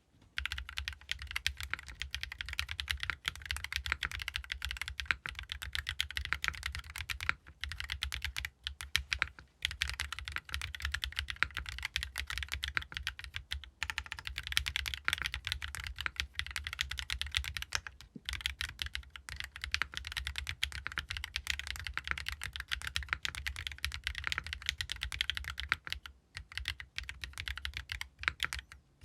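Fast continuous typing on a GEON F1-8X mechanical keyboard with BSUN Raw switches, an aluminium plate, an O-ring mount, no foam and ABS double-shot keycaps: a rapid stream of keystroke clacks with a soft low thock under them, pausing briefly now and then.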